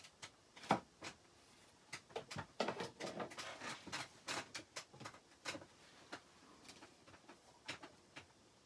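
Scattered light clicks and taps of craft supplies being handled on a tabletop, with a dense run of them a few seconds in.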